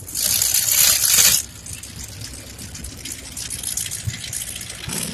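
Mud and water splashing and rushing in a mud-bog pit: a loud spray for about the first second and a half, then a softer steady wash.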